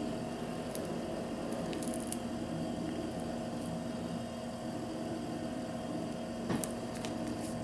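Waeco CF35's Danfoss 12 V compressor running with a steady hum, while the new thermistor probe is held against an ice pack to make it cut out. The plastic of the frozen ice pack crinkles under the fingers, with a louder crackle about six and a half seconds in.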